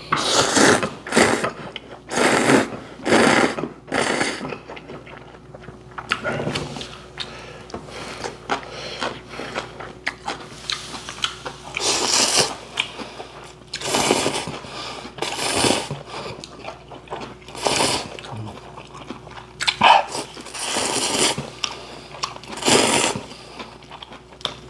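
Ramen noodles being slurped, a series of long noisy sucking slurps coming in clusters, with quieter chewing between.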